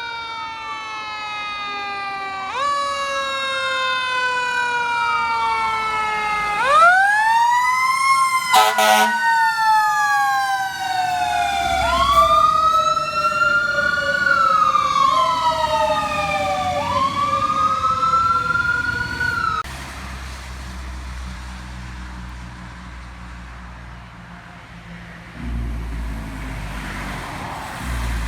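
Fire truck sirens wailing, each swooping quickly up in pitch and then sliding slowly down, again and again, with a brief horn blast about nine seconds in. The sirens cut off abruptly about twenty seconds in, leaving a heavy truck engine rumbling.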